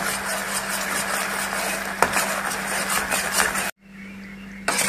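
Utensil stirring and scraping in a pan of ginger juice and brown sugar simmering into a thick syrup, a busy run of scrapes over a steady low hum. It cuts off abruptly about three-quarters of the way through, and a quieter stretch follows.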